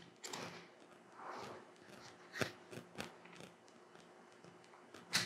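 Small scissors snipping the tag ends of fishing line at a finished figure-eight knot: a few faint, sharp clicks, the clearest about two and a half and three seconds in, with another near the end, over light handling of the line.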